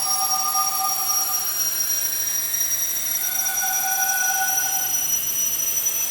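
Sci-fi spaceship engine sound effect: a steady hiss with a high, unbroken whine and several tones slowly sliding in pitch. A held two-note tone sounds near the start and again about three seconds in, each lasting about a second and a half.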